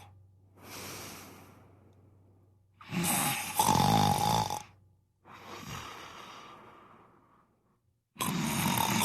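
Heavy snoring: loud in-breath snores about five seconds apart, each followed by a softer breath out that fades away.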